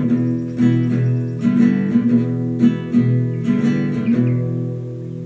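Acoustic guitar strummed in a steady rhythm, about two chord strokes a second, with the last chord left to ring and fade near the end.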